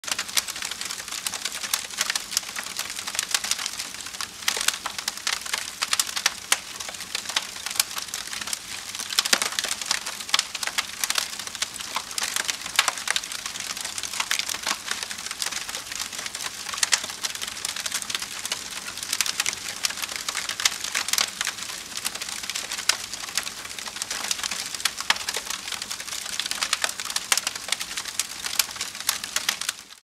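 Wood bonfire burning: a dense, continuous crackle with many sharp pops scattered throughout.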